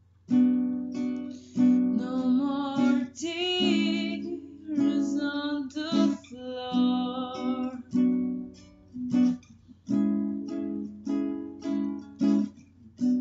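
Instrumental song intro: a plucked acoustic string instrument picking notes and chords in a steady rhythm.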